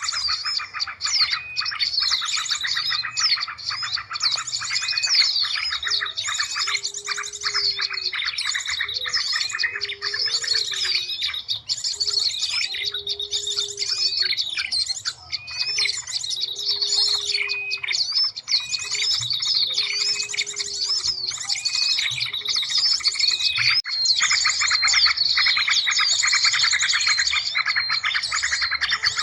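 Bird-lure calling recording: many small birds chirping and trilling densely at once, a mix of different calls layered over each other. From about six seconds in to about twenty, a low note repeats roughly every second and a half beneath the chirping.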